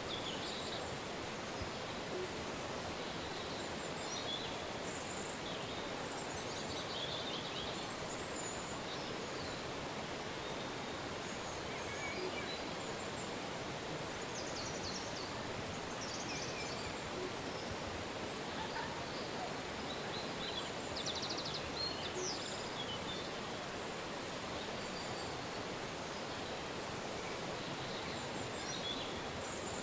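River water rushing steadily over its bed, with small birds chirping and trilling now and then above it.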